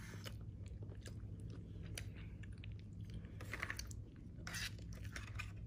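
Faint, close chewing of a mouthful of bread, in short irregular strokes, over a steady low hum.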